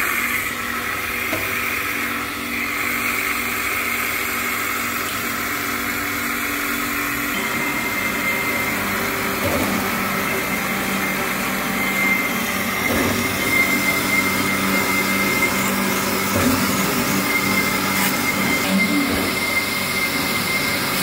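Delapena vertical honing machine running while rough-honing a hydraulic cylinder barrel with 80-grit stones: a steady motor whirr with a high whine over it. Its low hum changes pitch about seven seconds in.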